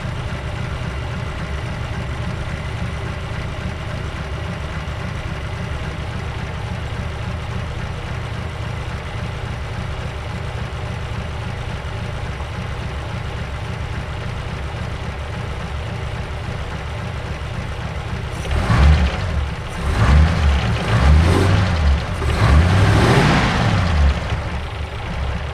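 1951 Mercury's 255 cu in flathead V8 idling unevenly just after its first start in a year, the idle not yet tuned. Near the end the engine is revved several times, the pitch rising and falling with each blip.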